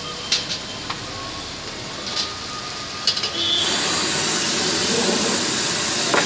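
Steady hiss of a gas burner with a few sharp metal clinks from a pan and utensils. About three and a half seconds in, a sudden loud sizzling rush as the pan of tarka dal flares up in flames, running on steadily.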